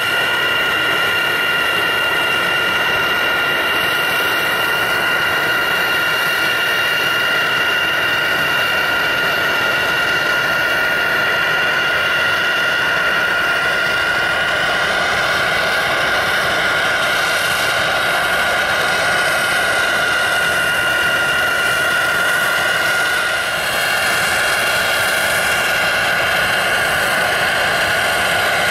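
Airbus A320's CFM56 turbofan engines landing and rolling out on the runway: a steady high whine over a broad jet rush that grows brighter about halfway through, with a brief dip near the end.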